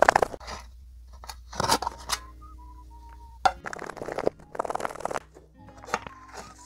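Rice and side dishes being shaken inside a closed metal tin lunch box: a dense rattling burst right at the start, then a few shorter shaking bursts, and a sharp knock near the end as the tin is set down.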